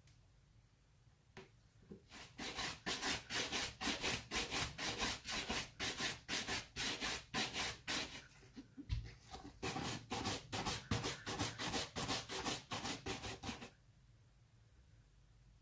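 A bristle shoe brush swept briskly back and forth over a leather dress shoe, about three strokes a second, buffing off excess burgundy shoe polish. There is a brief pause about halfway, and the brushing stops shortly before the end.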